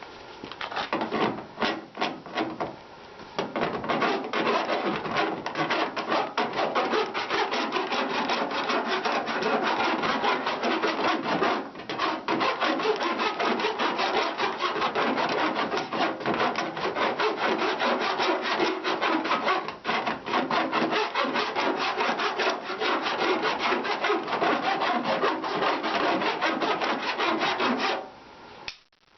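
Flat hand file scraping over hardened lead-free body solder on a welded patch-panel seam, rapid back-and-forth strokes, with a short pause after the first few and a stop near the end. This is the filing stage, taking the solder down flush with the panel.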